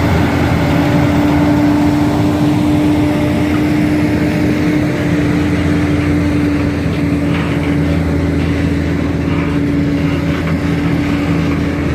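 A heavy diesel engine running steadily nearby: a loud, constant drone with a steady hum that does not rise or fall.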